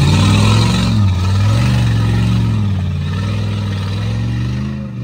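Jeep Grand Cherokee's 4.7-litre V8 revving up and down under load as it claws up a muddy slope, the engine note rising and falling repeatedly.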